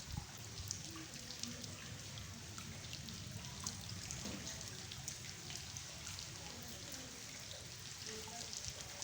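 Rain falling steadily, with many small drops pattering on a floor.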